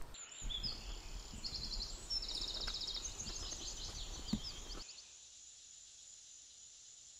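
Woodland birds singing in short trills and repeated chirps, over a steady high-pitched note. The birdsong stops abruptly about five seconds in, leaving faint steady hiss and the thin high note.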